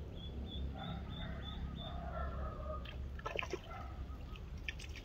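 Duckling on a fishing line peeping in a quick run of short calls, about three a second, then splashing at the water's surface about three seconds in and again near the end as it is jigged for snakehead.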